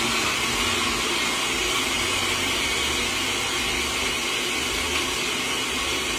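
Countertop blender running at a steady speed, blending a red sauce, with an even, unbroken whirring.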